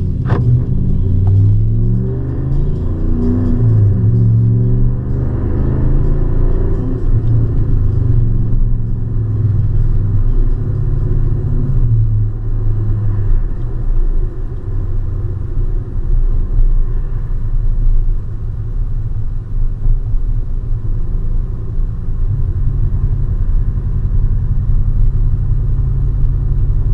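Exhaust drone and engine rumble inside the cab of a 2015 Ram 1500 with a Flowmaster Super 10 muffler. The engine note climbs while the truck accelerates over the first several seconds, then settles into a steady low drone while cruising. A single sharp click sounds just after the start.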